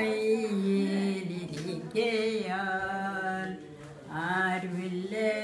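An elderly woman singing a Christian song unaccompanied, in slow, long-held notes with a wavering voice. She breaks off briefly for breath about four seconds in, then carries on.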